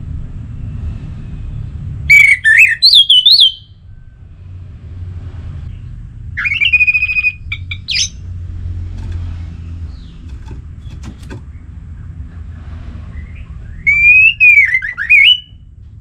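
Orange-headed thrush singing three short, loud phrases of rich whistled notes, several seconds apart, with quick rising and falling slurs, over a steady low rumble.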